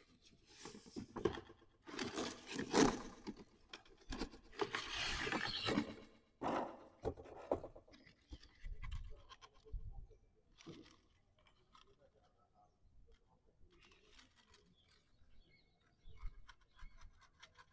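Cardboard box being opened and handled by hand: flaps and packaging scraping and rustling, loudest in the first several seconds. Then softer rustles and small clicks as the plastic toy rock crawler is lifted out of its box.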